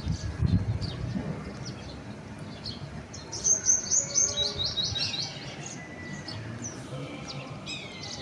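Small birds chirping, with a quick run of high, falling chirps about three to five seconds in. Low, dull thuds near the start.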